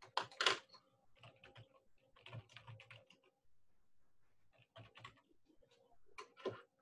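Typing on a computer keyboard in several short bursts of keystrokes, with the loudest flurry at the start and another near the end.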